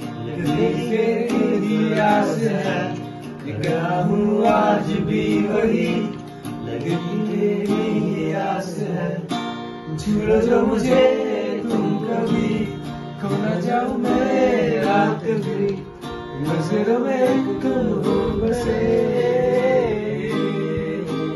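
Acoustic guitar strummed in chords with voices singing along.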